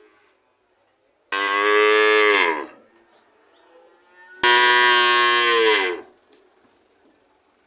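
A cow mooing twice, each call about a second and a half long, a loud drawn-out moo whose pitch drops away at the end.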